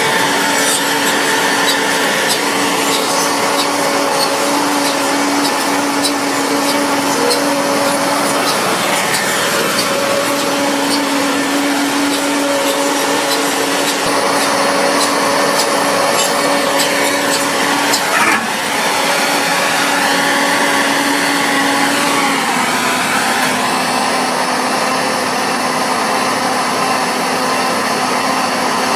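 Self-propelled tobacco harvester running steadily as it cuts and lifts whole tobacco plants, a dense mechanical drone with steady whining tones, whose pitch dips slightly near the end.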